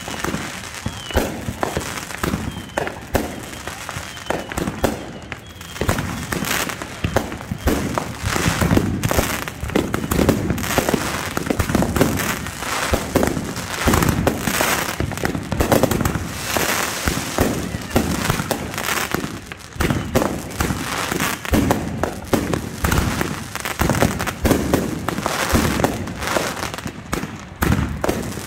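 Aerial fireworks going off in a steady barrage: rapid, overlapping bangs of shells launching and bursting one after another, with only brief lulls.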